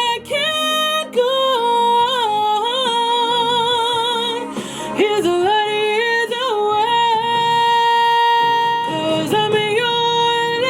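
A woman singing with a strong vibrato, moving between held notes and holding one long high note about two-thirds of the way through.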